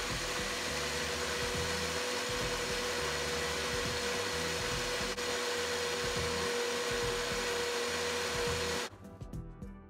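Single-serve personal blender running steadily, blending a smoothie: an even whir with a steady hum, until the motor is switched off about nine seconds in.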